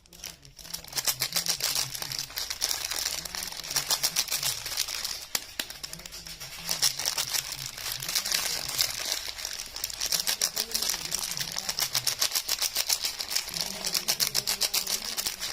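Soap packaging being handled and unwrapped close to the microphone: a dense, continuous crinkling and crackling of wrapper. A faint low tune with stepping pitch runs underneath.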